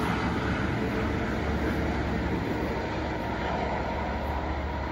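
GO Transit bi-level commuter train pulling away along the track, a steady low rumble of wheels on rail.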